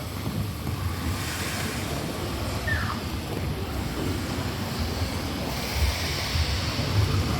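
Steady rushing, surf-like ambient noise over a low rumble, the background soundscape of an immersive museum exhibit, with a faint short falling whistle-like glide about a third of the way in.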